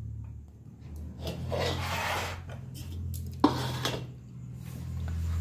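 Hands rubbing and pressing raw pizza dough onto a wire microwave rack, in two spells of scratchy rubbing, with a sharp knock about three and a half seconds in. A low steady hum runs underneath.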